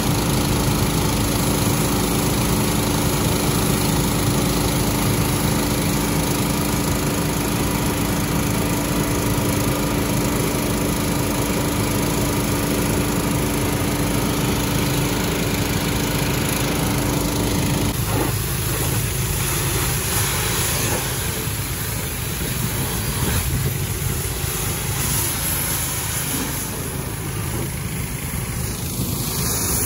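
Small gas engine of a pressure washer running steadily under load while it sprays a truck. About two-thirds of the way through, the steady engine hum drops out abruptly, leaving mostly the hiss of the water spray.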